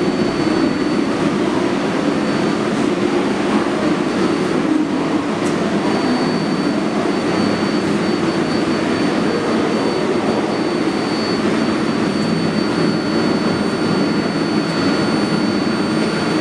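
R188 subway train standing at the platform, its onboard equipment giving a steady drone with a thin, constant high whine.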